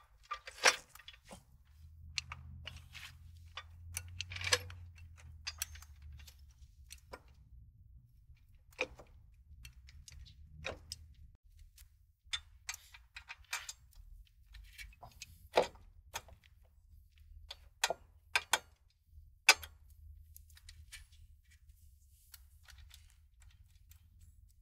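Irregular metallic clicks and clinks of bolts and hand tools against the steel suspension parts, as strut lower-mount bolts are fitted into a truck's lower control arm. A faint low rumble runs for a few seconds near the start.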